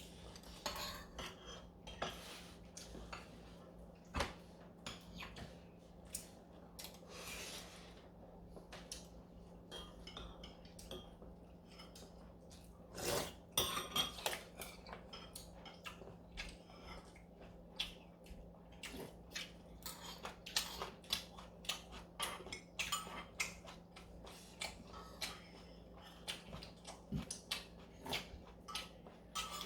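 Spoons and chopsticks clinking and scraping against bowls during a meal of galbitang: many short, irregular clicks, busier in the second half.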